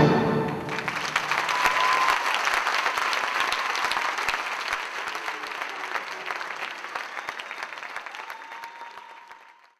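Theatre audience applauding as the last chord of the music dies away, the clapping fading steadily and then cutting off near the end.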